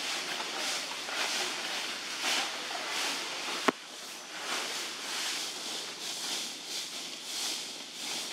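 Forest insects buzzing as a high hiss that swells and fades about one and a half times a second. A single sharp click comes about three and a half seconds in.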